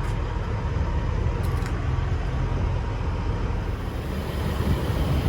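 Steady low rumble of motor vehicle noise with an even hiss over it, unbroken throughout.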